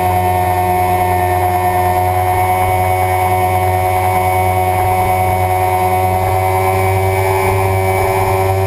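Suzuki sport bike's engine running at a nearly steady pitch under sustained throttle, its note edging up slightly near the end. Heavy wind rush is heard from a camera mounted on the bike at track speed.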